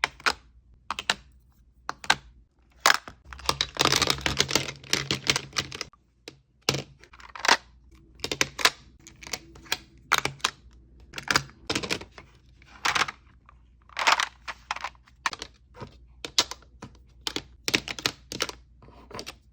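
Cosmetic cases and containers being handled, making a run of sharp, irregular clicks and taps as lids and compacts are opened, closed and set down. A denser, rustling stretch comes about four seconds in.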